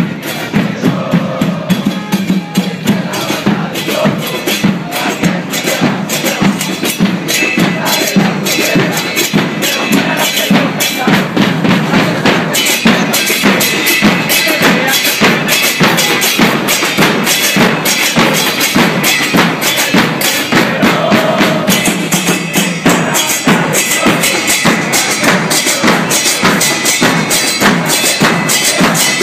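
Supporters' drum band playing a steady, rapid beat on bass drums, snare drums and cymbals, with a crowd of fans singing along.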